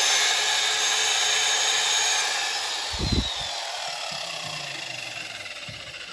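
Old Craftsman corded electric drill, drawing about 3 amps, switched on and running at speed with a high whine. A little over two seconds in, the whine falls in pitch and the drill winds down, fading away, with a short thump about three seconds in.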